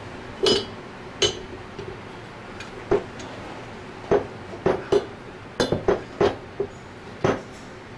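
Metal parts of an Anest Iwata ISP250 scroll pump clinking and knocking as the bearing housing and scroll assembly are pressed down into place by hand. There are about a dozen sharp clinks, irregularly spaced, each with a brief ring.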